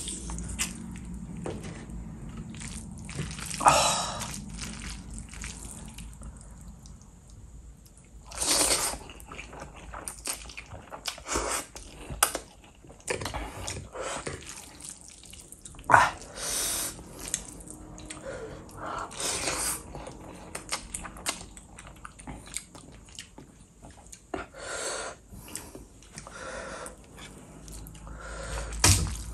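Close-miked person eating noodles: irregular wet slurps and chewing mouth sounds, a few slurps louder than the rest.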